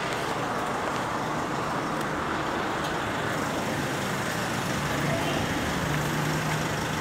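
Steady road-traffic noise with a low engine hum, the hum strongest a little before the end.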